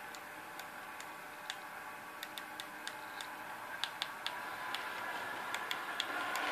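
Märklin H0 model electric rail car (DB class 403) running along its track: irregular sharp clicks of the wheels over the rail joints, more frequent after a few seconds, over a steady motor hum that grows louder near the end as the train comes closer.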